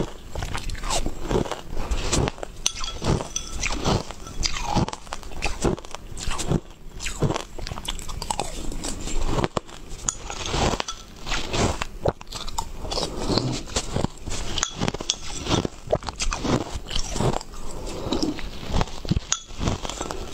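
Ice chunks crunched and chewed close to the microphone: a continuous run of crisp, irregular bites and crunches.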